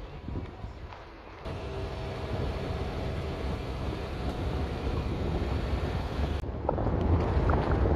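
Car driving on a rough gravel road, heard from the car: a steady low engine and tyre rumble with wind noise. About six and a half seconds in the rumble gets louder and is peppered with small ticks of loose stones under the tyres.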